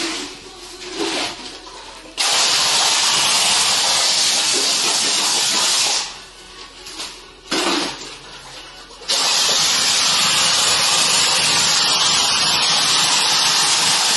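Compressed-air plaster hopper gun spraying plaster: a loud, steady air hiss that starts about two seconds in, stops about six seconds in, and starts again about nine seconds in.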